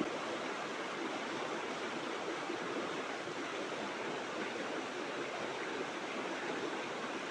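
River water rushing, a steady even hiss with no breaks.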